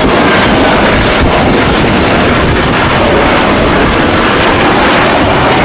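Twin-engine jet airliner landing: a loud, steady rush of jet engine noise and air, with a faint high whine above it.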